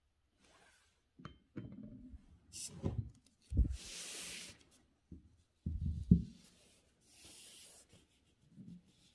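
A sheet of writing paper being slid and smoothed by hand across a desk. There are two longer papery swishes, and several dull thumps and knocks of the hand and the sheet against the desk.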